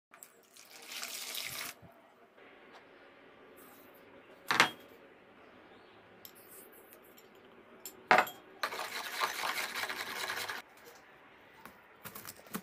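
Ingredients being added to warm milk and mixed in a plastic tub for a yeast dough starter: two stretches of hissy pouring and mixing noise, with two sharp knocks in between, over a faint steady hum.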